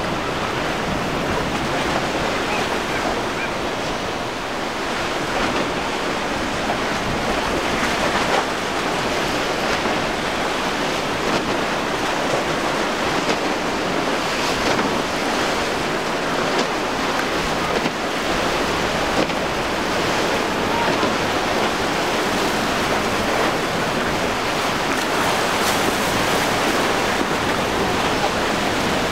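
Surf and breaking waves washing steadily, with gusty wind on the microphone.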